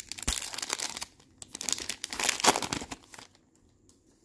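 A foil 2021 Topps Chrome Tennis card-pack wrapper being torn open and crinkled by hand. The crackling comes in two stretches, the second louder, and stops a little after three seconds.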